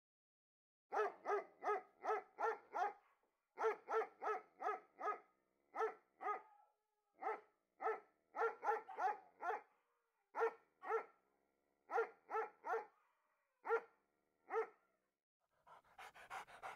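A dog barking repeatedly, about two dozen barks in quick runs of two to six, all at much the same pitch. Near the end it gives way to rapid panting.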